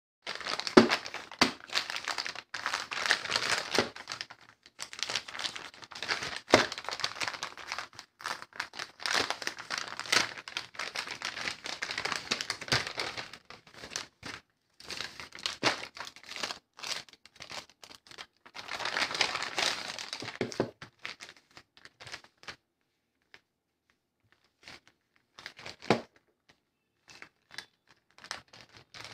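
Paper mailer envelope and plastic packaging bag crinkling and rustling as they are handled right at a clip-on microphone, dense for about the first twenty seconds, then thinning to scattered crinkles and clicks.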